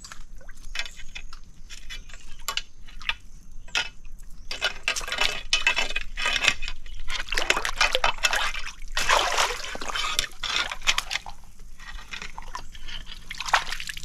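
Water splashing and sloshing in a shallow muddy pool as a stick is jabbed in and a mud crab thrashes at the surface. The splashing comes thick and loudest from about four seconds in until about eleven.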